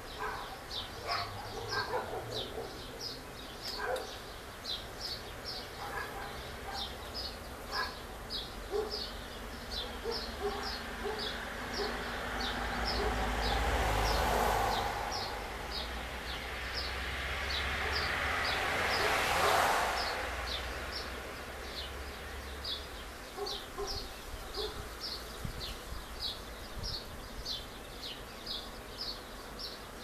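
Birds singing, with a high short chirp repeated about twice a second and scattered lower chirps. Two vehicles pass on the street, one swelling up and fading about halfway through and another a few seconds later.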